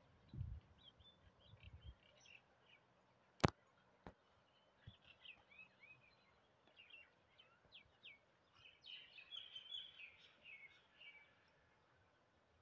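Faint birds chirping in short, quick rising and falling notes, busiest near the end, over quiet outdoor background noise. A single sharp click a few seconds in is the loudest sound.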